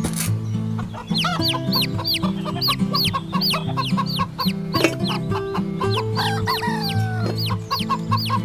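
Background music: sustained low chords changing in blocks, with quick, hooked, chirp-like high notes that sound like clucking, repeating about three times a second from about a second in.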